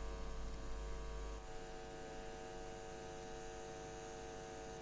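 Steady electrical hum in the recording, made of several steady tones. The deepest part of the hum drops away about a second and a half in.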